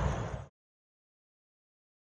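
Train noise fading and then cutting off about half a second in, followed by dead silence.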